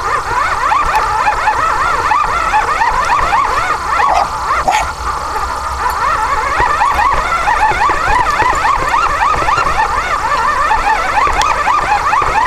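Small rover robot's drive running, a high whine whose pitch wavers rapidly up and down.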